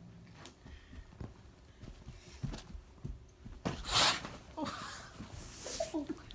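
An angry cat in a bag, with scattered rustles and taps, then a sharp hiss about four seconds in, followed by short wavering yowls and another hiss near the end. The cat is agitated by a dog.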